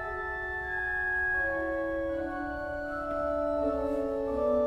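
Organ music: slow, held chords, the lowest note stepping down from chord to chord.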